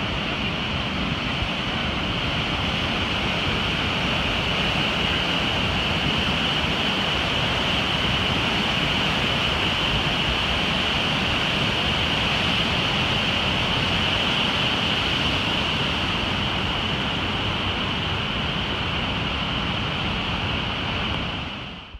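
Kjosfossen waterfall rushing: a steady, loud noise of falling water, fading out in the last second.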